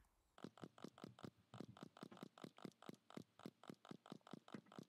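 Faint computer keyboard typing: short key clicks in a quick, even rhythm of about five or six a second, beginning about half a second in, as the same value is typed into field after field.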